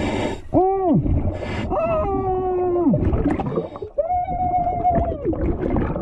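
Underwater metal detector tones heard through water: a short beep that rises and falls about half a second in, then two longer held tones, one about two seconds in and one about four seconds in. Between them come rushes of exhaled scuba bubbles.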